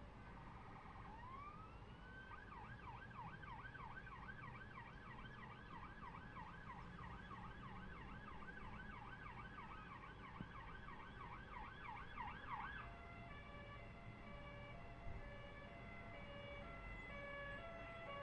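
Faint emergency vehicle siren: it winds up in pitch, runs a fast yelp of about four sweeps a second, then about 13 seconds in switches to a slower stepped alternating-tone pattern.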